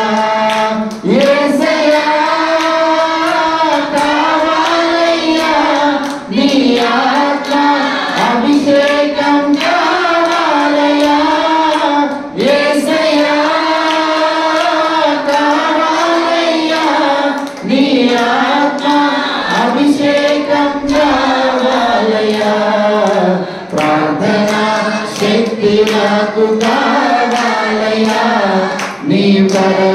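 A man singing a Telugu worship chorus through a microphone with others singing along, accompanied by hand-clapping.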